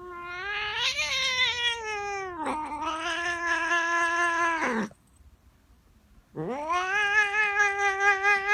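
A cat yowling in long drawn-out cries that sound like a scooter engine being started. The first cry wavers, dips, then sinks in pitch and stops. After a pause of about a second and a half, a second cry rises and holds with a fast warble, like an engine catching and idling.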